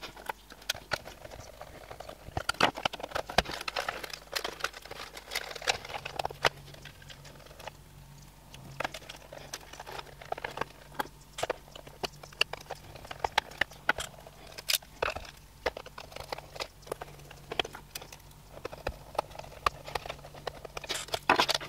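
Handling noise from reassembling an opened projector: irregular small clicks, taps and rustles of plastic casing, circuit board and wires as cables and connectors are fitted back in place.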